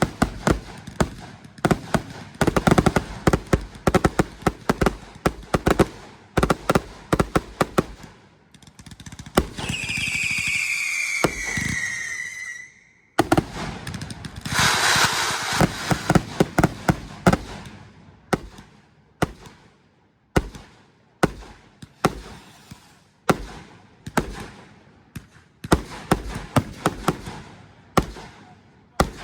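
Consumer fireworks going off: a dense run of rapid crackling reports, then a shrill whistle falling slightly in pitch for about three seconds, a loud hiss, and then a string of single bangs about one or two a second.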